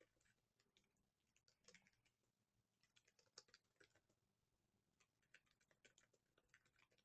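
Faint computer keyboard typing: quick, irregular key clicks in short runs.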